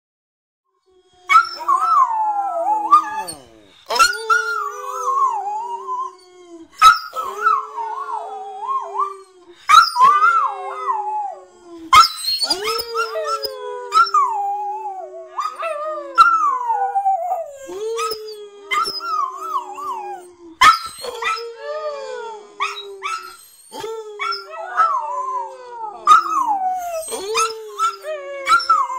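Two West Highland White Terriers howling together, starting about a second in and going on in long repeated howls. One holds a steady lower note while the other wavers and slides down higher up, with a few short sharp sounds between howls.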